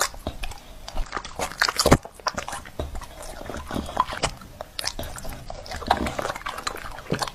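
A bully-breed dog biting and chewing soft dragon fruit taken off a fork: an irregular run of quick chewing clicks and crunches, several a second.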